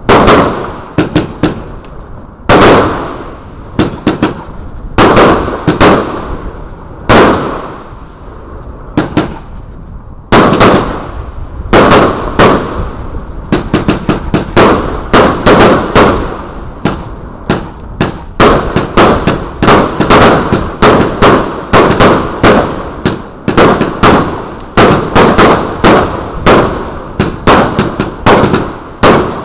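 Lesli 'Carmageddon' firework battery firing shot after shot: sharp launch thumps and aerial bursts with crackle. The shots come a couple of seconds apart at first, then in quick succession from about a third of the way in.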